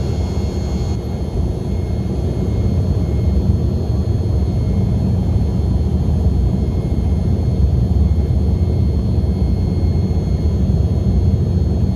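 Cabin noise of an Embraer 195 in its initial climb after takeoff: the twin GE CF34-10E turbofans at climb thrust give a steady, loud low rumble with a few thin, high whining tones over it, heard inside the cabin.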